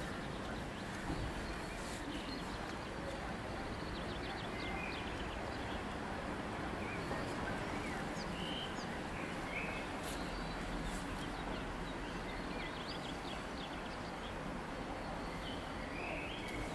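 Outdoor ambience: a steady background hiss with scattered short bird chirps.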